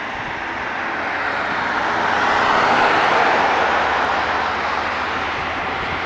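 Road traffic passing close: tyre and engine noise that swells to its loudest about three seconds in, then eases a little.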